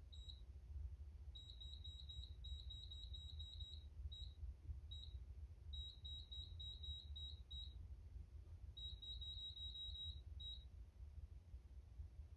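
Short, high electronic beeps of one pitch from a Trans-Lux Fair-Play PS-6000 LED scoreboard system, coming in quick runs of several a second with short gaps, as the scores are stepped up. A faint low hum sits underneath.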